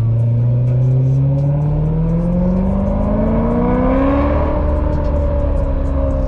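BMW E92 M3's V8 engine pulling under acceleration, its pitch rising steadily for about four seconds and then holding level.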